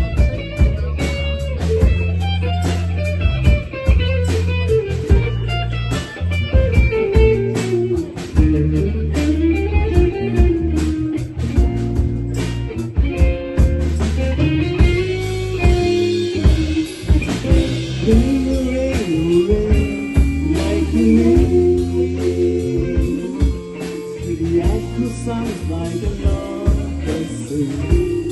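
Live rock band playing a slow, bluesy song: a guitar melody over bass and a drum kit keeping a steady beat.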